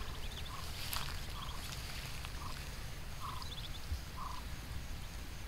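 Muscovy ducklings and their mother calling softly: short peeps and quick high chirps about every second, over steady low background noise, with a small sharp click about a second in.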